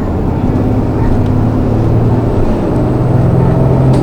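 City bus engine and running noise heard from inside the cabin while the bus drives. A steady low engine hum that strengthens in the second half as the bus pulls along.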